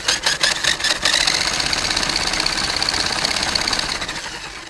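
Remote-control buggy's motor and drivetrain whirring, picked up by the phone strapped to its chassis. About six quick throttle pulses a second at first, then a steady high whine that fades near the end. The run shakes the whole phone.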